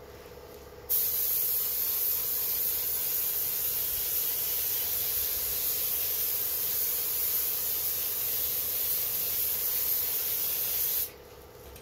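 Compressed-air spray gun spraying a light coat of black paint as a patina over gold on a carved wooden furniture piece: a steady, even hiss that starts about a second in and cuts off shortly before the end.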